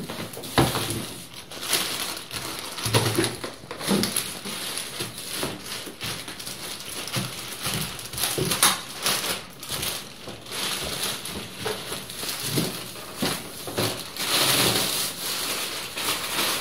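Clear plastic wrapping bag crinkling and rustling in irregular crackly bursts as it is handled and pulled off a hard-shell suitcase.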